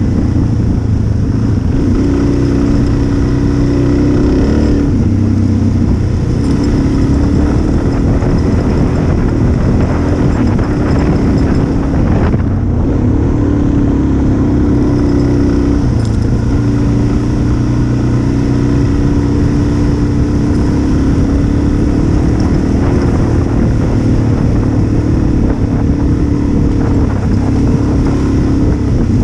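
Dual-sport motorcycle engine running at riding speed, heard from on the bike, under a constant rush of wind and tyre noise on gravel. The engine note shifts up and down a few times as the throttle is eased and opened.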